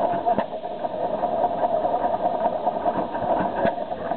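Bamford open-crank hit-and-miss stationary engine running, a steady mechanical chugging with two sharp cracks about three seconds apart.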